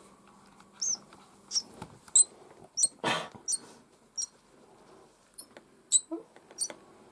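Baby bird's begging cheeps while it is being fed: about ten short, high chirps repeating roughly every half second or so. A brief rustle-like noise comes about three seconds in.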